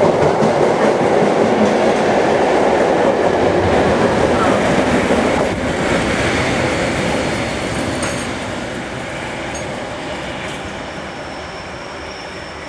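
Network Rail test train with a Class 31 diesel locomotive at the rear passing close by: a loud clatter of wheels on the rails that fades from about six seconds in as the train draws away. A faint high squeal comes in near the end as it takes the curve.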